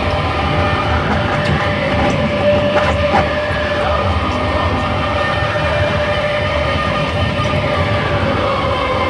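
Live noise music: a loud, dense wall of distorted noise over a rumbling low end, with several held tones drifting slowly in pitch.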